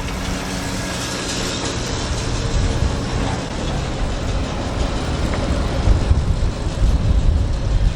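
Tractor engine running steadily: a low, even drone with hiss over it, before it is shut down.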